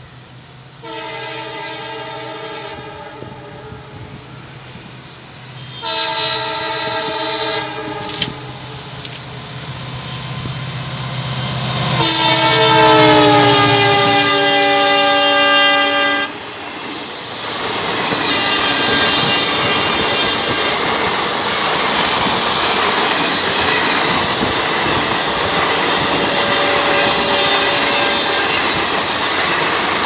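WDP4 diesel locomotive sounding its multi-tone horn three times as it approaches, the third blast longest and loudest and dropping in pitch as the engine passes, over the low rumble of its two-stroke EMD diesel. Then the coaches pass with a steady rush of wheel noise and clickety-clack over the rail joints.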